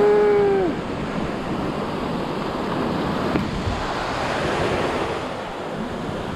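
Surf breaking and washing up over the sand in the shallows, with wind on the microphone. A person gives a short held call in the first half second or so.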